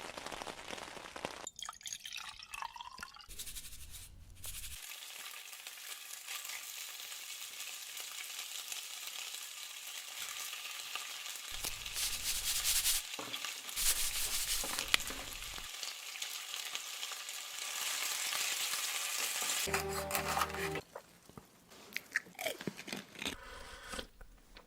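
Close-miked ASMR eating sounds: food crunching and being chewed, with a soft crackling hiss between bites.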